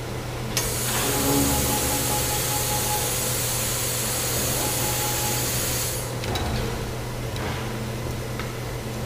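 Steady low machine hum with a loud, even hiss that starts suddenly about half a second in and cuts off about six seconds in; a few sharp clicks follow near the end.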